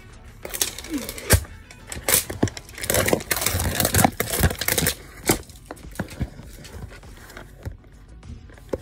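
Toy packaging being handled, a dense run of crackling and clicking for the first few seconds, then quieter with a few single clicks, over background music.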